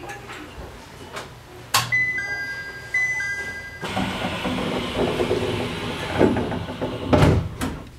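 Inside the cab of an E127 series electric train on the move, a two-note electronic chime sounds twice in a row. Then the train's running noise rises into a louder rumble, with a heavy thump near the end.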